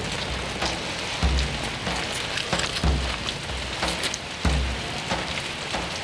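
Steady rain falling, a continuous hiss with scattered louder drops, under a low, deep pulse that comes about every second and a half.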